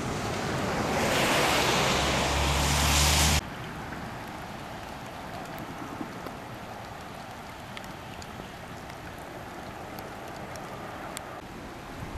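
Storm ambience of rain with wind buffeting the microphone, loud for the first three and a half seconds and then cutting off suddenly. It gives way to lighter steady rain with scattered small drip ticks.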